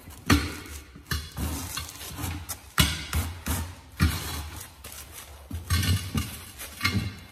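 Steel tyre irons clanking and scraping against a steel mower wheel rim as a tyre is levered onto it by hand: irregular sharp metallic knocks with a short ring, the loudest near the start.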